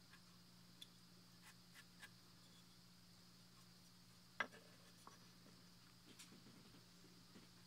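Faint ticks of a carving knife cutting into a wooden relief panel, with one sharper click about halfway through, over a low steady hum.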